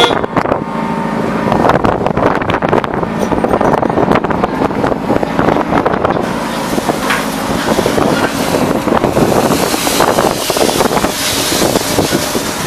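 Industrial shredder plant running with a Liebherr 934 material handler working its orange-peel grapple: a steady mechanical drone with continual crunching and clatter. About halfway through it turns hissier and rougher as the grapple digs into the pile of debris.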